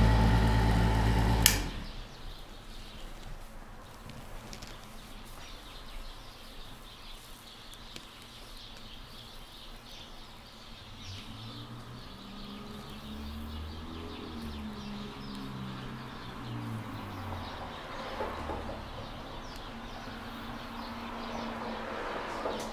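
A small electric motor hums steadily, then switches off with a click about a second and a half in. After that there is only faint room noise with light rustling and ticks.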